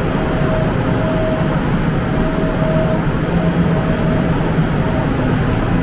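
Steady rumbling noise of a subway train running, with a faint whine that comes and goes.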